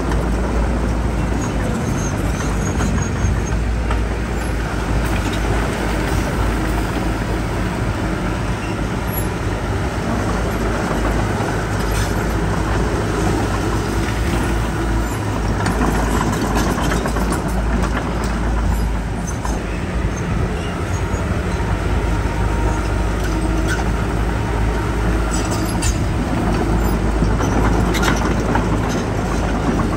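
Heavy diesel earthmoving machinery running steadily, a deep continuous engine drone, with a few light knocks now and then.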